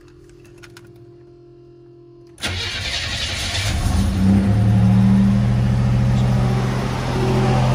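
Cold start of a 1987 Buick Grand National's turbocharged 3.8-litre V6 after two weeks sitting: a faint steady hum with the key on, then about two and a half seconds in the engine cranks briefly and catches, flares up in revs, and settles to a steady idle.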